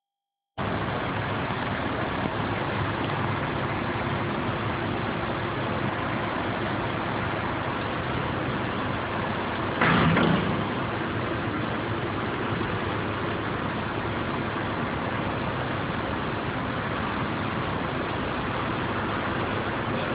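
Crane engine running steadily during a lift, with a brief louder burst about ten seconds in.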